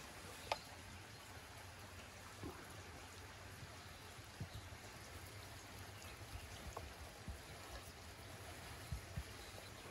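A clay lid set onto a clay pot with a sharp click about half a second in, then a few soft taps and pats of hands pressing dough around the pot's rim, over a faint steady hiss of water.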